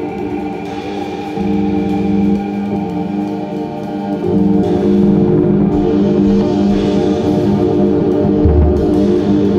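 Experimental music: a Eurorack modular synth holds layered, droning pitched tones over an acoustic drum kit played with sticks. The synth tones shift about a second and a half in, then change again and get louder around four and a half seconds in.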